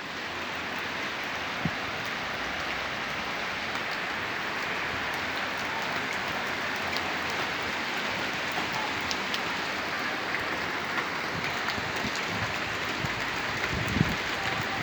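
Steady rain falling, an even hiss with scattered individual drop clicks, and a few louder low knocks near the end.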